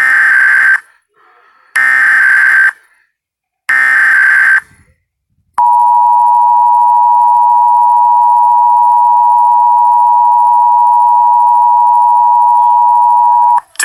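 Emergency Alert System test start: three short screeching bursts of SAME digital header data, then the steady two-tone EAS attention signal, held for about eight seconds before cutting off.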